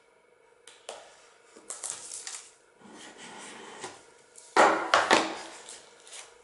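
A small cardboard earbuds box being opened by hand: scattered scrapes and rustles, with the loudest, longest scrape as the lid is slid off about four and a half seconds in.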